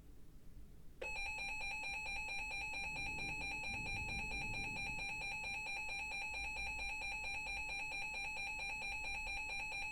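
Emergency Alert System attention signal: a steady two-tone alarm that starts abruptly about a second in and holds for about nine and a half seconds, announcing a new severe thunderstorm warning.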